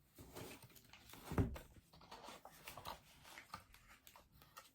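Quiet kitchen handling sounds as butter is put onto a bowl of rice: small scrapes and clicks, with one dull knock about a second and a half in.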